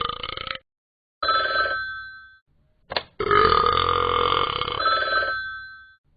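A person burping loudly: a burp trailing off about half a second in, a short burp, a brief click, then a long burp lasting nearly three seconds.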